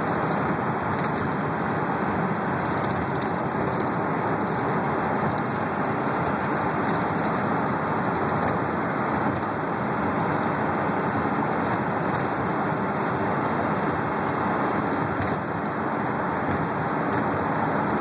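Transit bus driving at speed, heard from inside the cabin: a steady mix of engine and road noise that holds an even level throughout.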